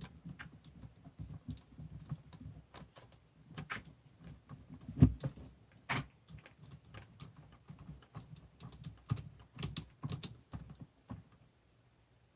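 Irregular small clicks and taps of a small wrench and metal screw hardware being worked on an RC car's shock mount as a shock screw and nut are tightened. Two sharper knocks come about five and six seconds in, and the tapping stops near the end.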